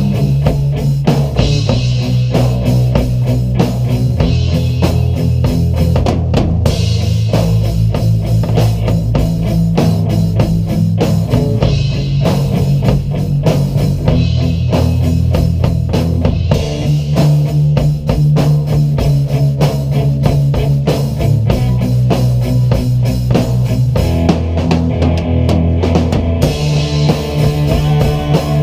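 A live rock jam, played loud: a drum kit with cymbals keeping a steady beat under amplified guitars, with a low bass line that changes note every second or two.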